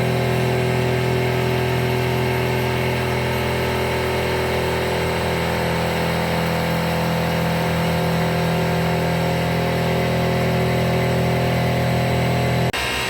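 EMCO Concept Mill 155 CNC milling machine cutting 42CrMo4 steel with a 10 mm carbide endmill: a steady spindle whine and cutting hum. The sound changes abruptly to a quieter one near the end.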